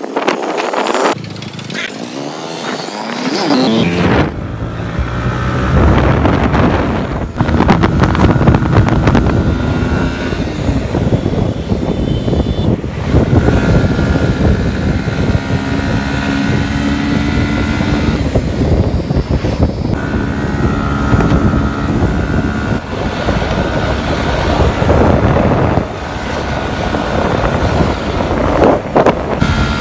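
Motorcycle engine running under way at road speed, its hum shifting up and down in pitch every few seconds as the throttle changes, over a steady rush of wind and road noise.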